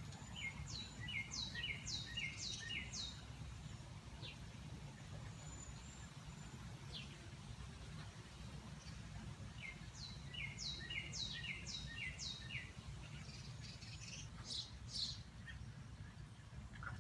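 A songbird singing: a quick phrase of about five down-slurred whistled notes just after the start, repeated about ten seconds in, with a few single notes between, over a steady low background rumble.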